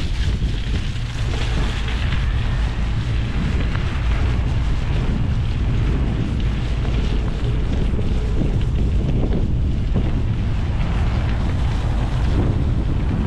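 Wind buffeting the microphone: a steady, loud, low rumble of wind noise.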